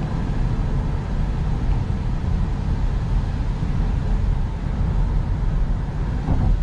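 Steady road and engine noise heard inside a car's cabin while cruising at highway speed: a low, even rumble of tyres and engine.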